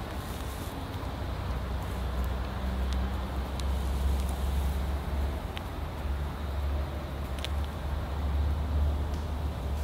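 Low, steady outdoor rumble with a few faint ticks, and no speech.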